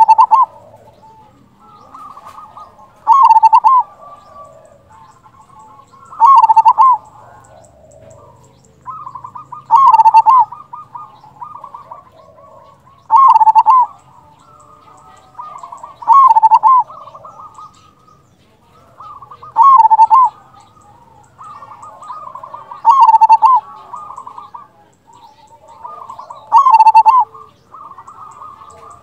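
Local zebra dove (perkutut) in full song: softer fluttering notes lead into a loud cooing phrase, repeated nine times about every three seconds.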